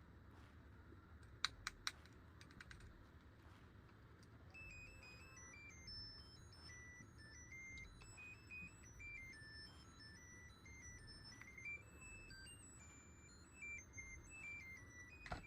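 A few sharp plastic clicks, then a faint electronic melody of single beeping notes that step up and down in pitch, playing on to the end.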